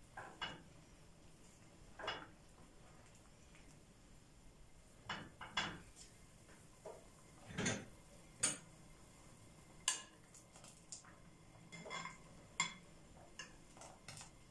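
Kitchen utensils knocking against a cooking pot and dishes: a string of irregular sharp clicks and clinks, loudest a little past the middle.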